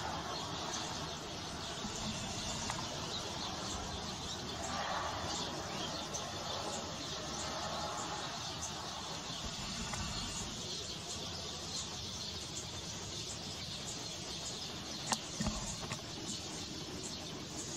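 Open-air countryside ambience: small birds chirping over a steady hiss, with a couple of short low knocks near the end.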